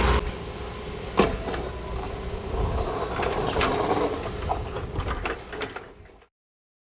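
Brooms scraping grit across an asphalt road, with an excavator's engine running underneath, a sharp knock about a second in and a few lighter knocks after. It all fades out about six seconds in.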